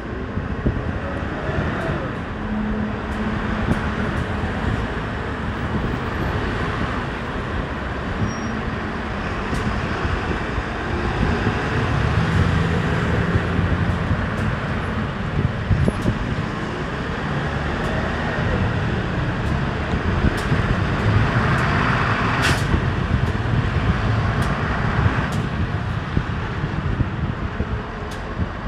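Road traffic at a city intersection: trucks and vans passing with steady engine and tyre noise. About three quarters of the way through, a louder hiss lasts a few seconds.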